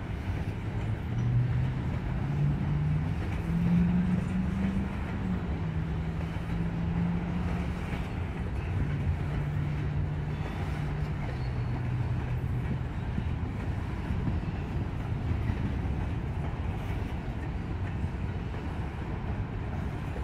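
Freight train cars, covered hoppers, rolling past: a steady rumble and rattle of wheels on rail. During the first half a low droning tone shifts up and down in pitch, then fades out.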